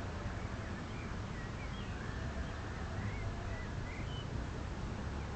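Outdoor city ambience heard from high up: a steady low rumble of distant city noise, with a few faint, short bird chirps scattered through it.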